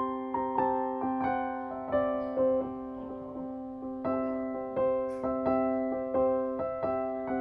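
Background piano music: a gentle tune with notes struck about twice a second over a held low note.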